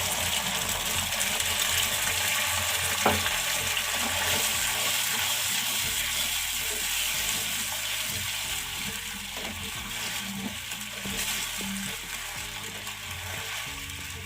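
Garlic cream sauce, just thinned with a little water, sizzling and bubbling in a non-stick pan: a steady hiss that slowly fades. A single knock about three seconds in.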